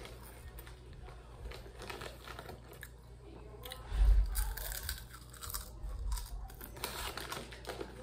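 A child biting and chewing chips close to the microphone, with crisp crunches. There is a loud low thump about four seconds in.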